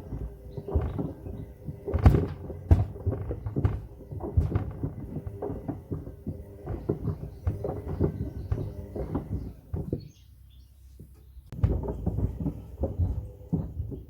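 Pieces of wood tumbling and knocking inside a Hoover washing machine drum: a rapid, uneven clatter of hard knocks over a faint motor hum. The knocking stops for about a second and a half near the end, then starts again.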